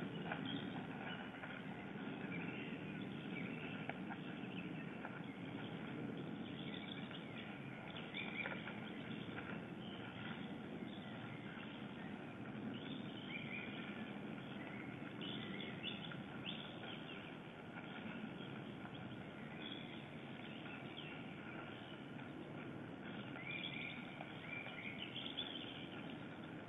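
Short, scattered bird calls, in bunches a few times, over a steady low background rumble.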